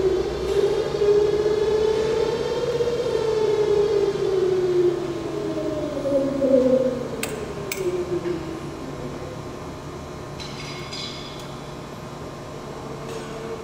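Koike Aronson HS45 headstock positioner's drive motor whining as it turns, its pitch rising and then falling as the speed is changed at the pendant. Two sharp clicks come about seven seconds in, and after that it settles to a quieter steady hum.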